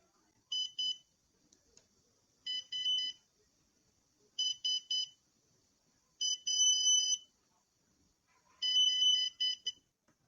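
Electronic beeping in five clusters about two seconds apart. Each cluster is a quick run of short, high beeps, and the last two run longer, near a second each.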